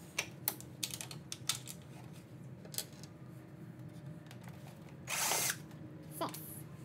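Cordless drill/driver backing screws out of a plastic grille shroud: a few sharp clicks in the first second and a half, then the drill runs in one short burst about five seconds in.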